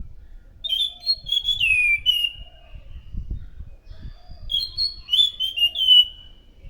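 Anis macan thrush singing: two loud phrases of clear whistled notes, each ending in a falling slur. The first phrase comes about half a second in and the second about four and a half seconds in.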